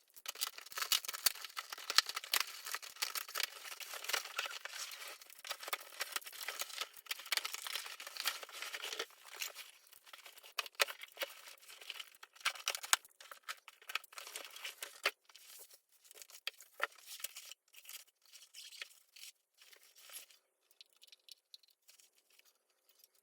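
Packaging being torn open and crumpled by hand: a dense run of rips and crinkling crackles for about the first ten seconds, thinning to scattered crackles and small clicks after that.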